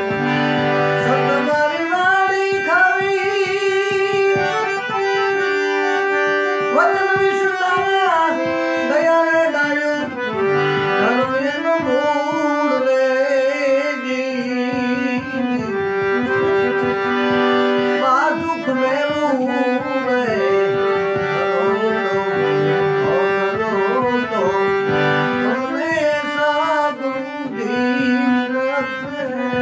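A Paul & Co harmonium played while a man sings along: the reeds hold steady chords and melody notes under his wavering voice.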